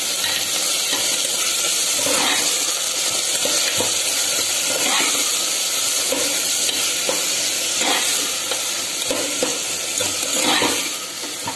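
Diced bottle gourd frying with a steady sizzle in oil in an aluminium pot, while a ladle stirs it and scrapes against the pot in short strokes about once a second.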